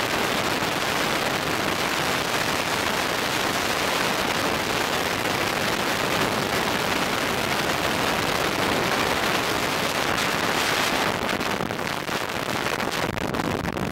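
Freefall wind rushing hard over the camera microphone during a tandem skydive: a steady, loud roar of air. Near the end it breaks up and drops a little as the parachute deploys and the fall slows.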